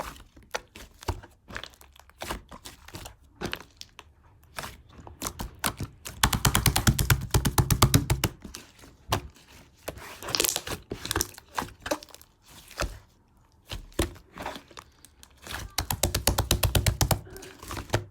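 Mint chocolate ice cream being handled: crackling, knocking and crinkling clicks, with two stretches of fast, even rattling scrapes, one about six seconds in and one near the end.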